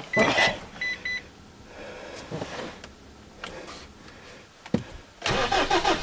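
Two short electronic beeps from the car's dashboard about a second in, then a quiet pause, and near the end the Mitsubishi's diesel engine cranks, catches and settles into a low idle, heard from inside the cab.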